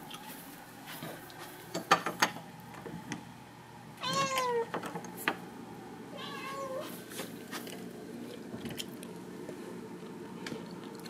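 House cat meowing twice, a falling meow about four seconds in and a shorter, fainter one a couple of seconds later, asking to be let out of the room. A few sharp clicks about two seconds in.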